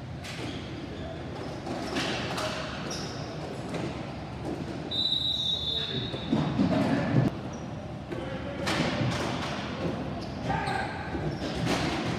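Ball hockey play: sharp clacks of sticks and the plastic ball striking the floor and boards, with players calling out. A referee's whistle sounds for about a second around five seconds in.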